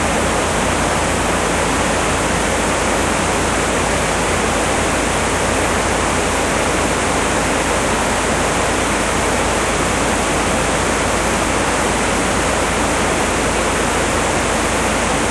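Floodwater of a swollen river rushing loudly and steadily, an unbroken wash of white water.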